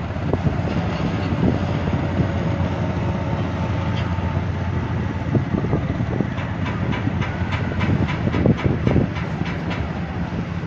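Steady low drone of a boat's engine running close by, with an even run of quick clicks joining in for a few seconds past the middle.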